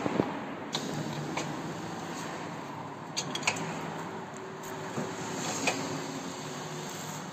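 Scattered metal clicks and clinks from parts being handled at the rear wheel axle of an electric scooter during wheel removal, over a steady background hum.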